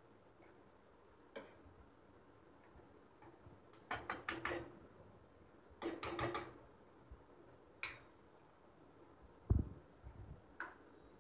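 Metal spoon scraping and clinking against a metal kadhai while a thick potato-and-vegetable pav bhaji mixture is stirred, in short clattering bursts with a few single clicks. A dull thump comes near the end.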